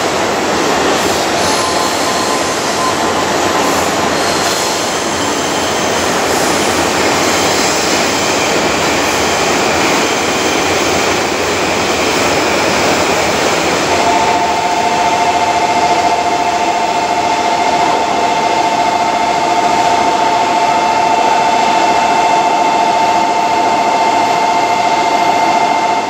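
JR East E235-series electric train running along a station platform: a steady rumble of wheels and traction motors. About halfway in, two steady high tones start and hold over the train noise.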